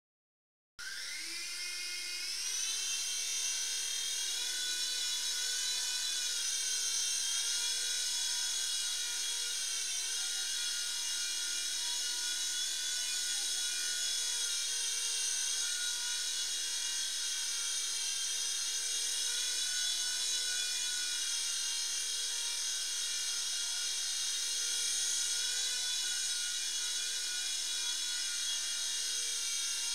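Small remote-control helicopter's electric rotor motor whining, starting about a second in and rising in pitch as it spins up, then a steady high whine that wavers slightly.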